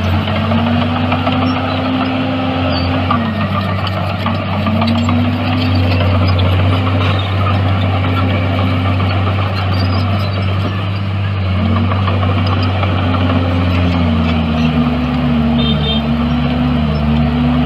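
Bulldozer's heavy diesel engine running under load, its note dipping and rising again every few seconds as the machine works.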